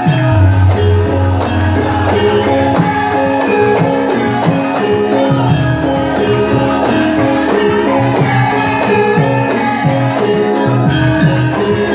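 Music with a steady beat: evenly spaced percussion hits over sustained, ringing pitched tones.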